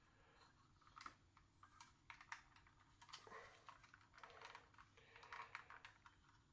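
Faint, irregular plastic clicks and taps of a Transformers action figure being handled and posed.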